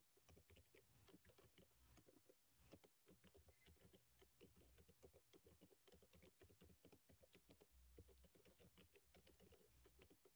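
Faint typing on a computer keyboard: an irregular run of light key clicks.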